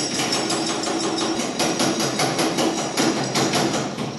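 Jiggle siphon's shaker end being jiggled up and down inside a plastic gasoline can: a rapid clatter of knocks, about six a second, as the shaking pumps fuel up the hose to prime the siphon.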